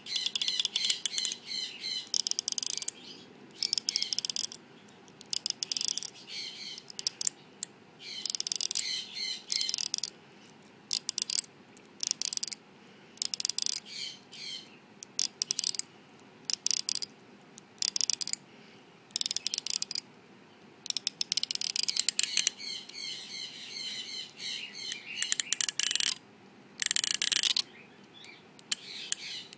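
Fingers run down the teeth of a comb again and again, each stroke a quick zipping rattle of rapid clicks. The strokes come in bursts of up to about a second with short pauses between.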